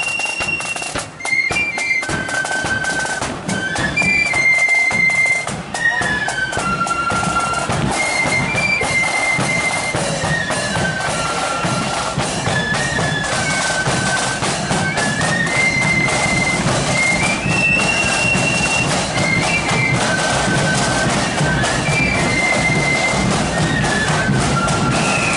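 Marching flute band playing a tune in unison on flutes, a high stepping melody, with side drums and a bass drum beating time.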